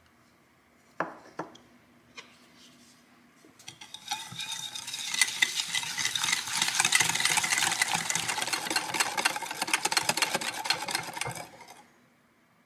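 Wire whisk beating egg yolks and sugar in a glass bowl, its wires clicking fast and continuously against the glass for about eight seconds before stopping abruptly near the end. This is the mixture being beaten until creamy yellow for custard cream. Two sharp knocks come about a second in.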